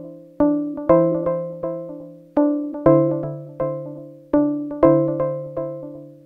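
Electronic keyboard music from a live soundtrack. Struck chords recur about twice a second, each fading away, over a held bass note that steps down in pitch about three seconds in.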